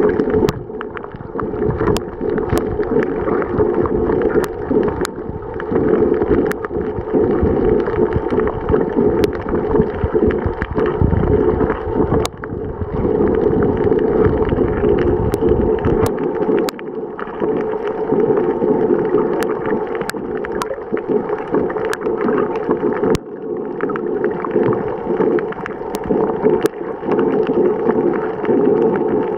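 Muffled underwater noise picked up by a camera submerged on a reef: a steady rushing hiss of water, with scattered sharp clicks. A heavy low rumble drops away about halfway through.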